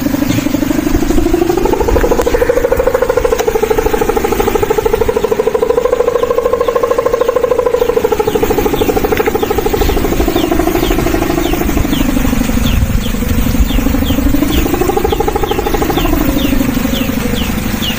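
The hummer (sendaren) on a big Madurese kite droning in the wind: a loud buzzing tone that slowly rises and falls in pitch, dipping lowest about two-thirds of the way through before rising again.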